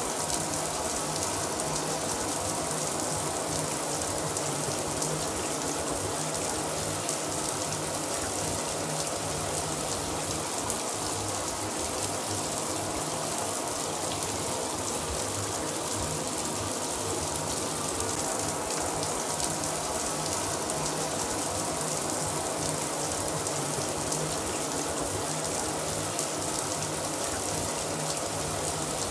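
Shower running steadily, water spraying from the head and splashing down in an even hiss.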